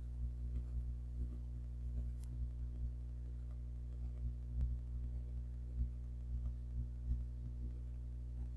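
Ambient background music: a low, steady drone of several held tones with soft, irregular pulses over it.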